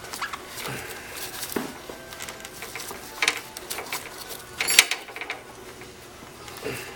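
Hand tubing cutter being worked around a copper refrigerant line, its cutting wheel scraping and clicking in short irregular strokes, with sharper clicks about three and five seconds in.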